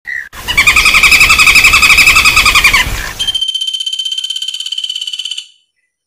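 Common flameback woodpecker calls: a loud, rapid rattling trill lasting about two and a half seconds, then a second, higher-pitched and quieter rattle of about two seconds that stops suddenly.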